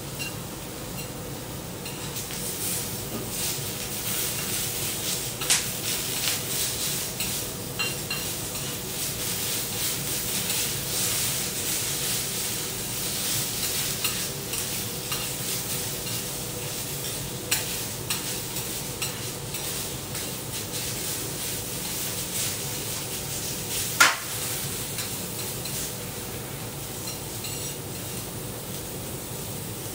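Green vegetables sizzling on a teppanyaki steel griddle as they are stirred and tossed with a spatula and long chopsticks, with scraping and sharp clicks of the utensils against the plate. The sizzle gets louder about two seconds in, and the sharpest click comes about 24 seconds in.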